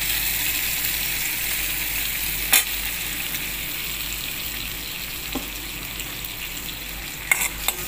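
Hot oil sizzling steadily in an iron kadai as a freshly added paste of ground vallarai keerai (Indian pennywort) fries in the mustard-and-cumin tempering. A sharp tap of the steel ladle on the pan comes about two and a half seconds in, and a few more come near the end.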